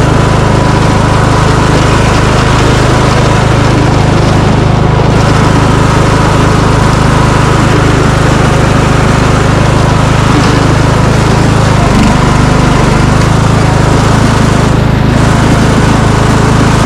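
Riding lawn mower's engine running steadily and loudly, close to the microphone, as the mower pushes a snow plow.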